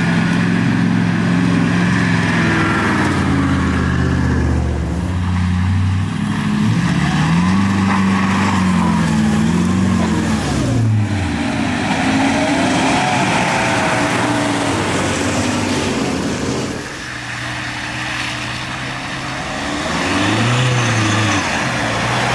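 Four-wheel-drive vehicle's engine revving hard, its pitch rising and falling again and again as it works up a slippery dirt incline, easing off briefly about two-thirds of the way through.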